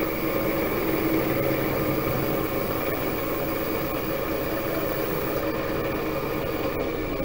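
Metal lathe running at a steady speed, its motor and spinning chuck giving an even hum.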